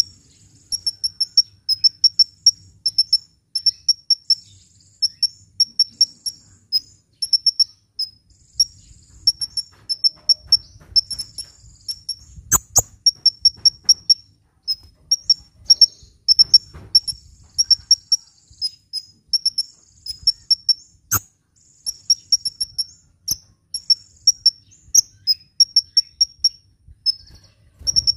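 A sunbird singing a steady string of short, rapid, high-pitched trilled phrases, about one a second. Two sharp clicks cut in, one a little before halfway and one about three quarters through.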